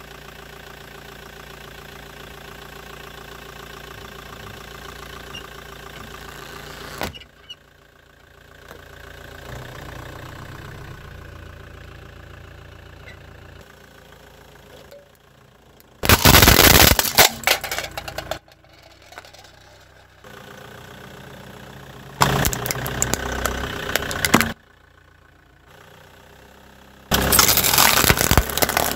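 Car engine idling steadily, then after a cut three loud spells of crunching and cracking, each about two seconds long, as a car tyre rolls over and crushes objects; the first is the loudest.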